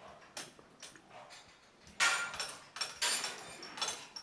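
Barn ambience: scattered rustling and scuffling noises, the loudest about two seconds in, with a few shorter ones after it.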